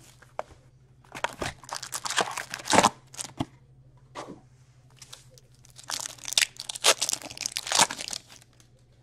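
Plastic shrink-wrap crinkling and tearing as a box of hockey cards is unwrapped and opened. Then, about six seconds in, a foil trading-card pack crinkles and tears open.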